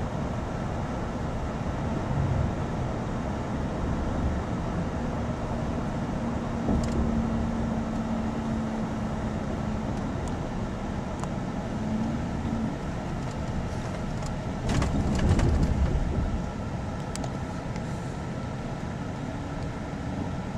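Inside a moving car: steady engine and tyre noise, with a steady hum for several seconds and a louder swell about fifteen seconds in.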